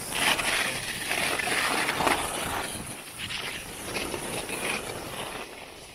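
Skis hissing and scraping over snow during a downhill run, the noise rising and falling in several waves.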